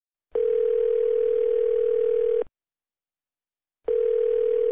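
Telephone ringing tone heard by the caller: a steady single-pitched tone that sounds for about two seconds, stops, then starts again near the end. The line is ringing and has not yet been answered.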